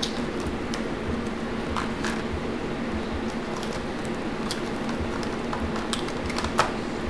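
Hands cracking and peeling boiled crawfish and blue crab shells: scattered sharp cracks and wet squishing, the loudest crack near the end, over a steady low hum.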